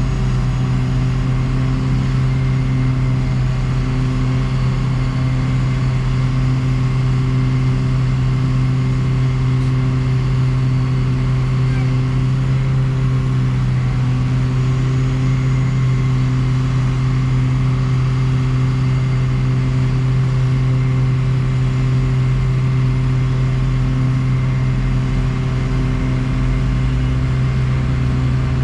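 Diesel engine of the corn-chopping farm machinery running steadily at a constant speed, a deep, even hum.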